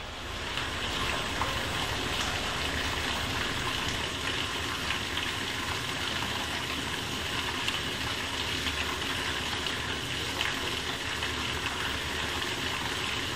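Water rushing steadily through a DN 50 siphonic roof drain and its downpipe running full bore at about 9 litres per second. The rushing gets louder about half a second in and then holds steady.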